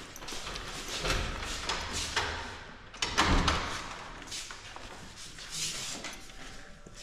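A wooden room door being opened, with footsteps and handling noise in a series of short scuffs and knocks, the loudest about three seconds in.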